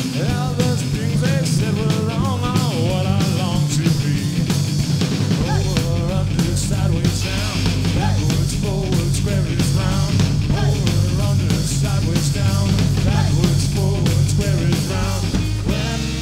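Live rock band playing loud: electric guitar, bass guitar and a drum kit with frequent cymbal strokes, with a sung vocal over it.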